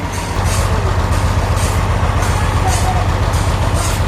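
Sawmill machinery running: a steady engine drone with a regular hiss repeating almost twice a second, growing louder about a third of a second in.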